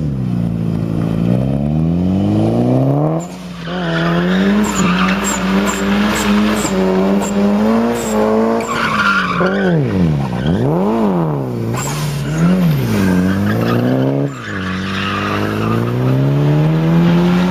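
Mitsubishi Lancer Evolution's turbocharged 4G63 four-cylinder engine held at high revs during a drift, with tyres squealing and skidding. The revs climb at the start, hold high, swing up and down quickly in the middle, and drop sharply and recover twice, about three seconds in and again near the end.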